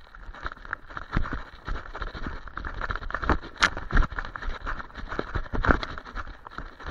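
Irregular knocks, jolts and rustling from a camera strapped to a running German Shepherd: its footfalls jar the mount, and dry brush scrapes past the camera housing, with the heaviest jolts about a second in and near the middle.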